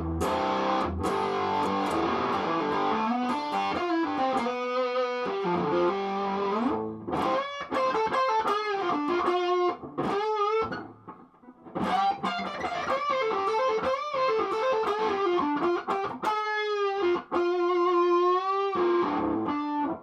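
Electric guitar played through the Hoover Hog, a homemade overdrive/distortion pedal, with a distorted tone: chords at first, then single-note lead lines with bends and vibrato. There is a brief pause about eleven seconds in.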